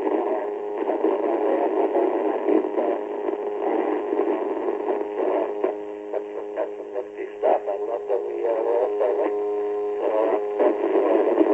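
Amateur radio receiver audio from the PSRG repeater, narrow and tinny, with an awful buzzing noise: a steady stack of droning tones covering a faint, garbled voice transmission that rises and falls in pitch. The buzz is interference on the received signal.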